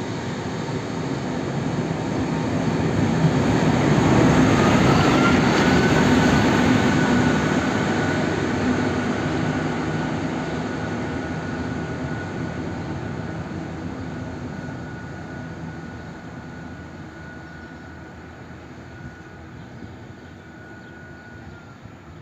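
M62-class diesel locomotive running light past at speed: the engine and wheels grow loudest about five seconds in, then fade as it pulls away. A steady high whine runs over the engine sound.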